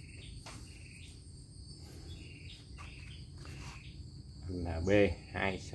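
Insects chirping steadily in the background, over a low rumble of ambient noise. A voice speaks briefly near the end.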